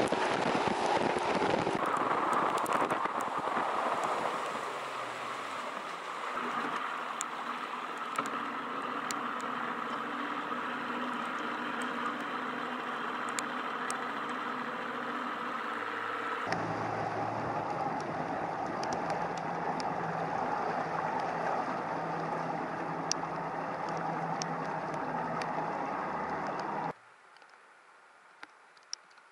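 Bass boat's outboard motor running at speed, with rushing wind and water noise and scattered light ticks of rain. The sound changes abruptly a couple of seconds in and again about halfway through. Near the end it drops sharply to a quiet background with a couple of light clicks.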